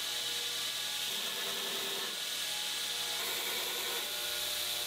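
Belt grinder grinding the steel bolster of a forged knife blade: a steady, high grinding hiss.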